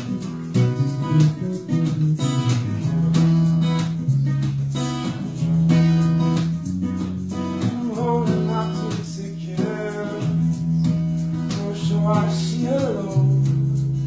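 Live jam: a strummed guitar over a bass line that moves every second or so, with a steady rhythm.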